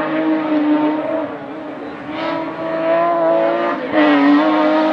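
Hillclimb race car's engine running hard at high revs, with brief dips in pitch at gear changes about two seconds in and again nearly four seconds in.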